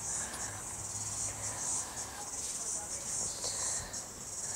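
Insects chirring: a steady high-pitched drone, broken by brief gaps.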